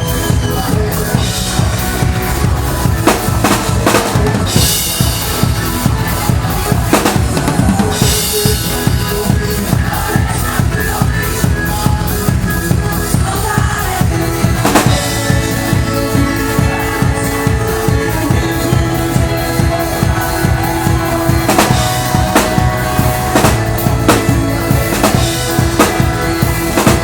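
Live band music led by a drum kit: a fast, driving kick-and-snare pattern with cymbal crashes about four and eight seconds in, over sustained chords from the band.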